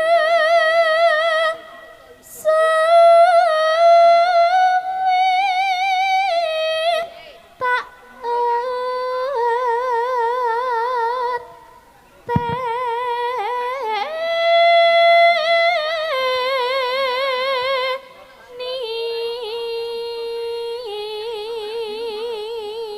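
A Javanese female singer (sinden) singing solo, holding long notes with a wide vibrato in phrases separated by short pauses.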